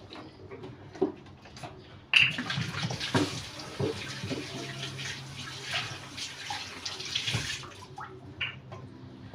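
Water running from a tap into a bottle being filled: a steady hiss that starts suddenly about two seconds in and stops a couple of seconds before the end. A light knock comes about a second in.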